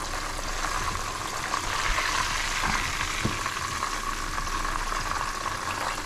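Breaded white bass fillets frying in a pot of hot oil, a steady sizzle. A couple of faint taps come a little past the middle.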